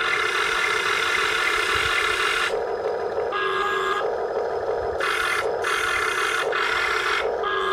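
Steady whine of a radio-controlled backhoe model's electric drive, its upper tones cutting in and out every second or so as the model's functions are worked.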